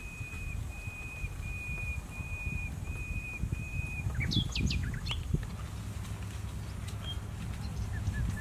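Birds calling: a run of short, level whistled notes, one about every two-thirds of a second. It stops a little before the middle and gives way to a few quick, steeply falling calls, with a few short chirps near the end. A low, even rumble lies underneath.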